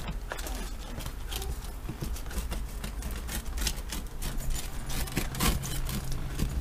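Pizza cutter wheel rolling through a cheesy crust and grating against the baking sheet, with a string of irregular clicks and scrapes.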